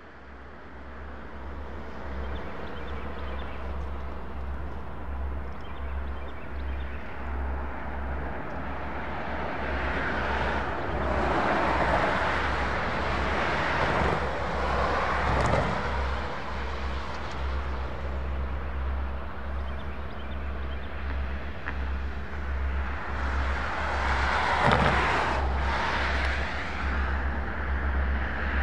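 Diesel freight train approaching, led by a Norfolk Southern EMD GP38-2 locomotive: a steady deep engine rumble with an even pulse, under a rushing rolling noise that grows louder as the train nears.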